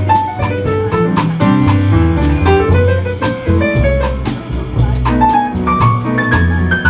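A jazz piece played by a small band: drums keep a steady beat under a moving bass line, with melody notes above.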